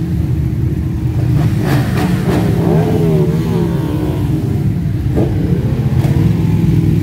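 A column of motorcycles rolling past at low speed, many engines running together in a dense, steady rumble. Around the middle, one engine is revved up and down a few times.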